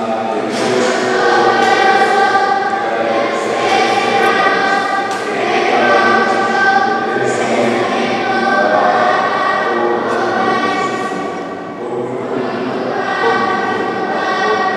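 A group of voices singing a hymn in long, held notes, phrase after phrase, with a brief pause about twelve seconds in.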